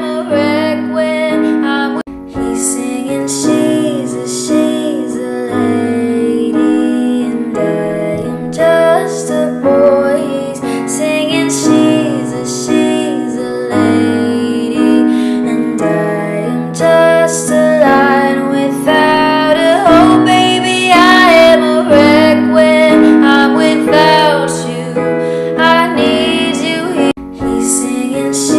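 A pop song: a female voice sings a melody over piano or electric keyboard chords.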